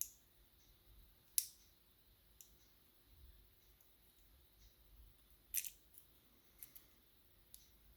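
Faint, scattered small metallic clicks of lock pins, springs and tweezers being worked out of a pin-tumbler lock's housing. The loudest come about one and a half seconds in and about five and a half seconds in.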